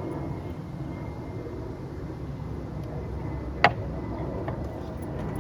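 Steady low rumble of background noise, with one sharp click a little past the middle.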